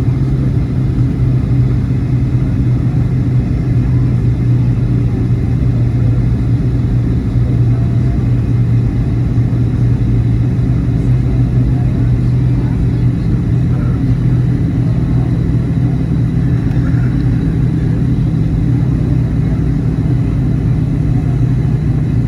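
Steady drone of a jet airliner's engines and airflow heard inside the passenger cabin in flight, a loud, even low hum. The hum shifts slightly higher about two-thirds of the way through.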